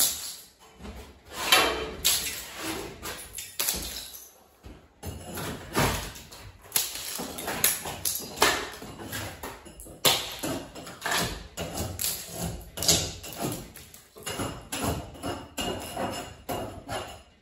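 Repeated hammer blows, sharp irregular knocks about one or two a second, some ringing on and echoing in a bare room.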